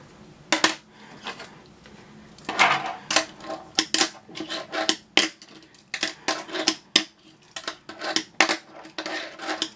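A fingerboard being flicked and landed on a hard desk top: sharp, irregular clacks of the deck and wheels striking the surface. A few come at first, then several a second from about two and a half seconds in.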